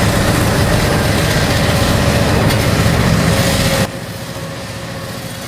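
Heavy machinery engine running loud and steady, cut off abruptly about four seconds in, where a quieter engine sound takes over.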